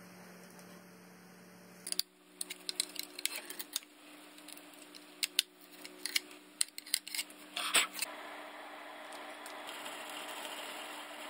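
Irregular light clicks and taps of an axe head, its handle and small metal parts being handled on a wooden workbench, in a quick run with the loudest knock near the end. A steady hum lies under it.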